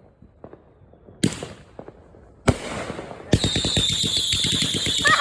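Fireworks going off: two sharp bangs over a second apart, then a rapid crackle of many small reports with high, slightly falling whistles that begins about three seconds in.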